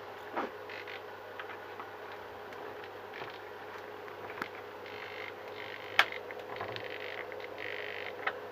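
Small clicks and scraping from hand work on model parts, with one sharp click about six seconds in, over a faint steady hum.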